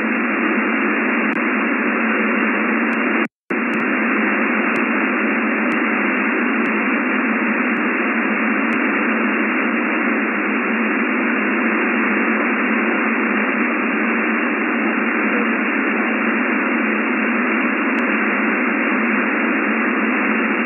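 Shortwave (HF) radio receiver hissing: steady static filling the narrow voice band of the channel, with no voice heard through it. The hiss cuts out completely for a moment about three seconds in.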